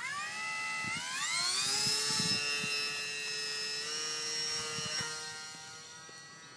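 Electric motor and propeller of a Parkzone Mini T-28 foam RC warbird on a 2S LiPo, spinning up in a rising whine over the first two seconds, then holding steady at high speed. After about five seconds the whine fades as the hand-launched plane flies away.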